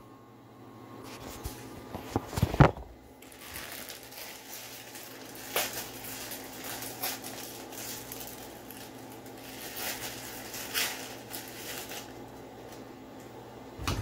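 Plastic instant-ramen packet crinkling and crunching in irregular bursts as the dry noodle block is broken up and shaken out, after a couple of sharp knocks about two and a half seconds in.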